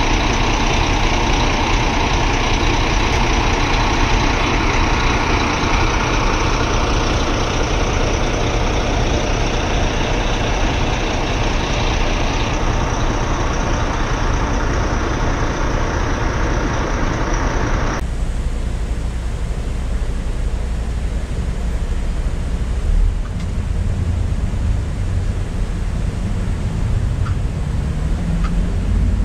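Volvo B9R multi-axle coach under way, a steady mix of diesel engine rumble and road and wind noise heard from inside the cabin. About two-thirds of the way through, the sound changes abruptly to a deeper, duller rumble with most of the hiss gone.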